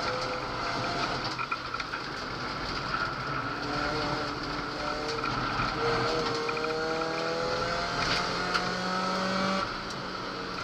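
Ford Focus 2.0-litre naturally aspirated four-cylinder engine pulling hard, heard inside the cabin. Its pitch climbs in several rising pulls with breaks between them as gears change, and the note drops near the end.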